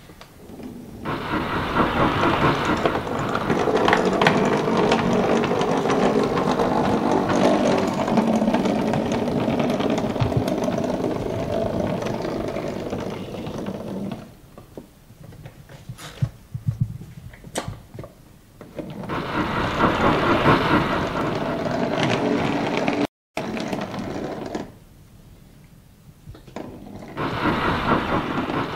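Small electric motor and gearing of an O gauge model locomotive whirring as it runs over the rails, in three stretches: a long one of about 13 s, a shorter one around two-thirds of the way in, and another near the end. Between the first and second stretches a few sharp clicks, like wheels passing over rail joints and points.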